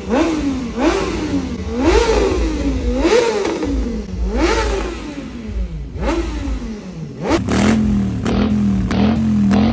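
A motorcycle engine being revved in repeated throttle blips, each a quick rise and fall in pitch. The blips come fast at first, then slower and bigger. About seven seconds in, after a last sharp rev, it drops to a steady, slightly wavering idle.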